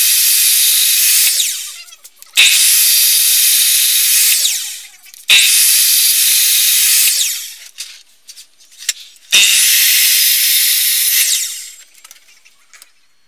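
Power miter saw cutting notches into leaf-spring steel, a harsh high-pitched grinding screech. It happens four times, each cut starting suddenly, lasting about two seconds and then trailing off.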